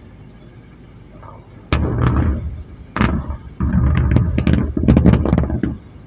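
A series of dynamite blasts along a mountainside, heard as deep rumbling booms mixed with many sharp cracks. They come in three waves starting about two seconds in and stop abruptly near the end.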